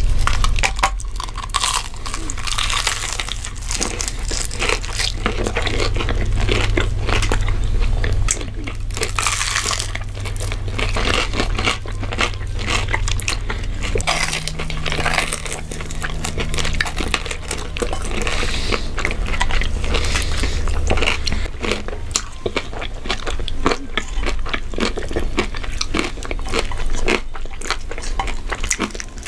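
Close-miked crunching and chewing of crispy fried chicken and taco shells, with irregular crackly bites throughout.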